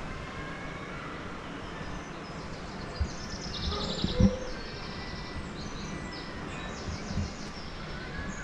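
Small birds singing in quick high chirping trills from about three seconds in, over steady outdoor background noise. A couple of short low thumps, the loudest about four seconds in.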